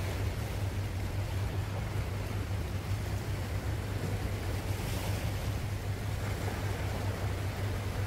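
Small sea waves lapping and washing against shoreline rocks, a slightly fuller wash about five seconds in, over a steady low rumble.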